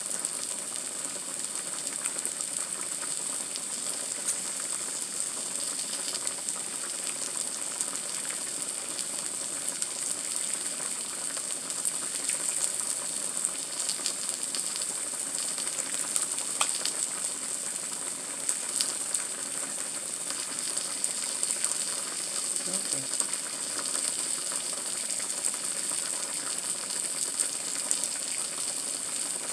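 Fish and thinly sliced potatoes sizzling steadily on a hot griddle, with scattered small crackles.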